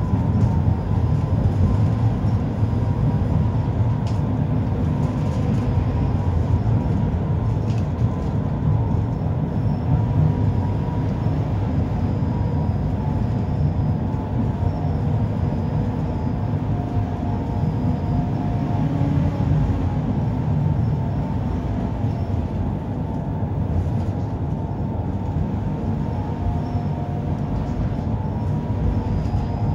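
A 71-931M Vityaz-M low-floor tram running along the line, heard from inside the car: a steady rumble of wheels on rail with a faint high whine over it.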